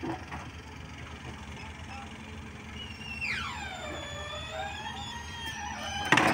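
Diesel engines of a crane and backhoe loader running with a steady low rumble. About three seconds in, a high mechanical squeal slides steeply down in pitch and holds for about two seconds. A sharp knock near the end is the loudest sound.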